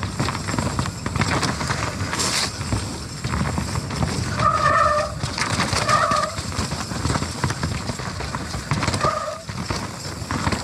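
Nukeproof Mega mountain bike descending a wet, rough trail: tyres, chain and frame rattling and rumbling continuously over the ground. Three short, steady honks from its SRAM DB8 disc brakes come about four, six and nine seconds in, the tone that wet disc brakes make when applied.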